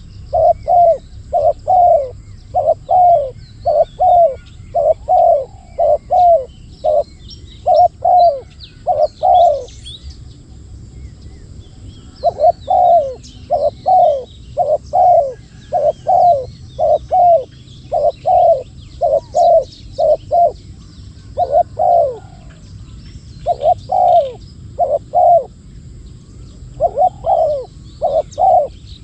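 Spotted doves cooing: rapid bouts of short, falling coo notes, two to three a second, broken by a few pauses, with faint high chirps of small birds behind them.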